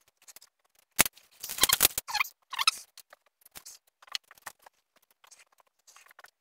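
Small metal parts and tools being handled, clinking against each other: a sharp click about a second in, then a short clatter of clinks with a brief metallic ring, and lighter scattered clicks after.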